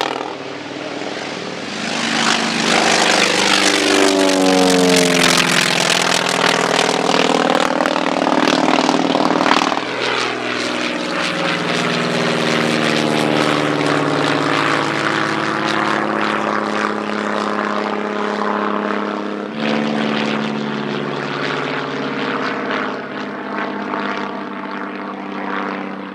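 Piston-engined propeller aircraft, a North American T-28 Trojan and a Cessna O-1 Bird Dog, flying low passes. The engine note falls in pitch as each aircraft goes by, and the sound cuts abruptly twice, about ten seconds in and again near twenty seconds.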